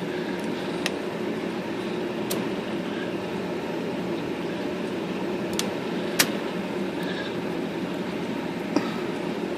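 IBM Selectric II typewriter running with its motor humming steadily, with five short sharp mechanical clicks, the loudest about six seconds in, as the rotary backspace is tried and adjusted.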